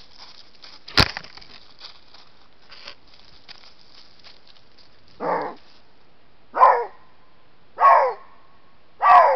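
Eurasian lynx rubbing its fur against the camera trap, with a sharp knock about a second in, then four short, loud calls, each falling in pitch, spaced about 1.3 seconds apart from about five seconds in.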